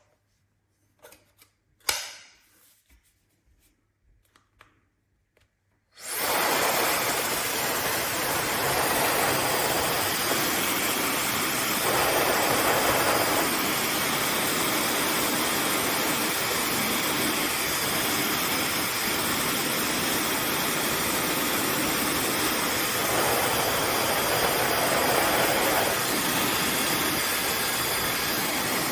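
A few handling clicks, then an AINA high-speed hair dryer switches on about six seconds in and runs steadily: a loud rush of air with a thin, high-pitched whine above it.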